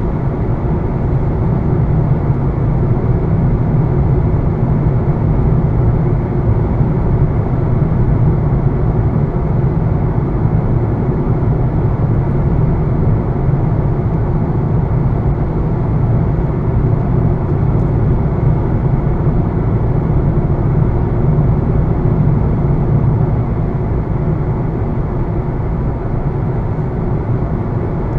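A 2020 Honda Fit's 1.5-litre four-cylinder engine and road noise while driving at a steady pace: a low, even rumble that eases a little near the end.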